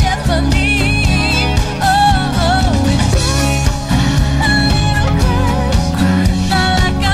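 Pop song sung by a female lead vocalist over a full band: electric guitar, bass, drums and keyboards, with a steady drum beat.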